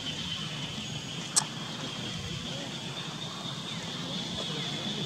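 Outdoor ambience: a steady high-pitched insect drone over a low background rumble, with one sharp click about a second and a half in.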